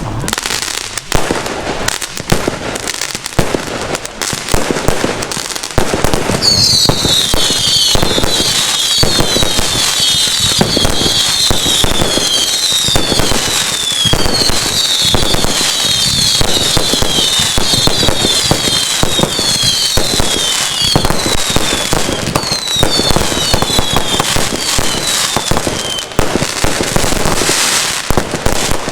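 Fireworks going off in a rapid, continuous run of bangs and crackles. From about six seconds in, many short whistles falling in pitch sound over the bangs, stopping a couple of seconds before the end.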